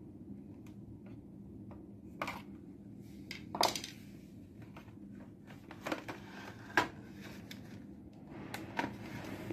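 Small hard parts and tools being handled on a workbench: scattered clicks and light knocks, the loudest about three and a half and about seven seconds in, over a faint steady hum.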